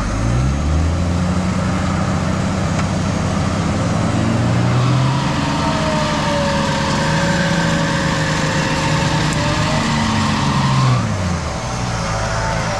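Diesel 4WD engine revving up about half a second in and held high under load for about ten seconds, with a higher whine over it in the middle, then easing back near the end: a vehicle driving hard in a soft mud bog.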